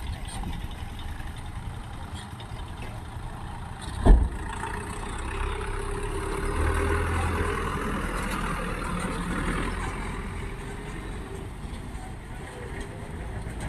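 Motor vehicle engines running, with one sharp, loud thump about four seconds in. The engine sound then grows louder for several seconds before easing off.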